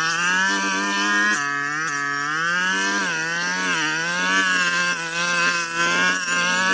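Two-stroke brush cutter engine running at high revs, its pitch repeatedly dipping and recovering as the blade cuts through thick brush.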